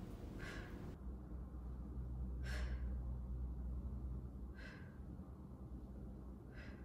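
A woman's breath, exhaled in four short puffs about two seconds apart, in time with her abdominal crunches, over a faint low hum.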